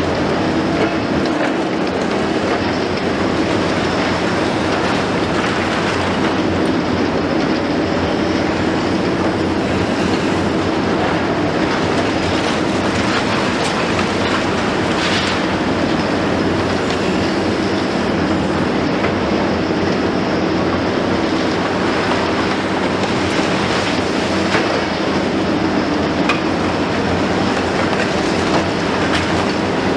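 Liebherr 954 long-front demolition excavator at work: its six-cylinder diesel engine runs steadily under a continuous noisy rumble and clatter of concrete being broken and rubble falling.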